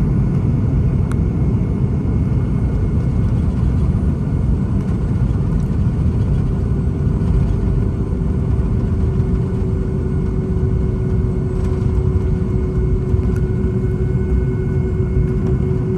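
Cabin noise inside a Boeing 757: a loud, steady rumble from the jet engines and the airframe. A steady hum joins about six seconds in.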